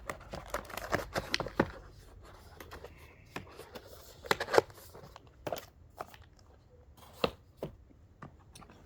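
Screwdrivers and their plastic packaging being handled: irregular clicks and knocks of plastic handles and trays, some in quick clusters, with light rustling between.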